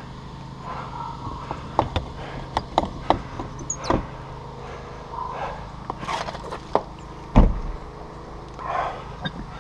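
Garage door being worked open by hand at its latch: a string of sharp clicks and knocks, with a heavy thump about seven and a half seconds in.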